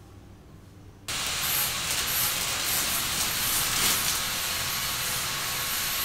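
Protective plastic film being peeled off a window frame: a continuous crackling, hissing rip that starts suddenly about a second in and keeps on steadily.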